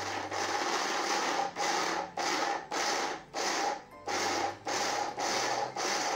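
Electric mixer grinder run in short pulses, about nine bursts with brief stops between them, coarsely crushing chopped coconut pieces in its small jar.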